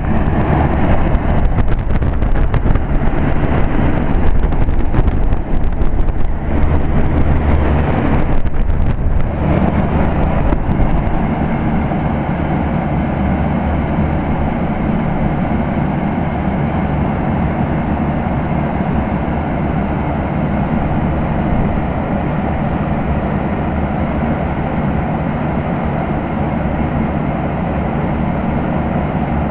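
Old General Electric central air-conditioner condensing unit running, a steady compressor hum under the whoosh of the condenser fan. It is louder and rougher for the first ten seconds or so, then settles to an even drone.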